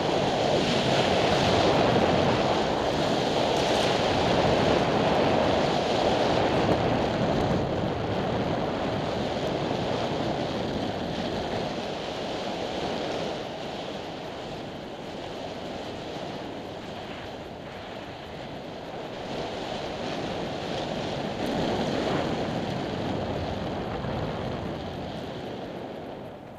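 Steady wind rushing over the microphone during a smokejumper's parachute descent, slowly easing and dropping away near the end.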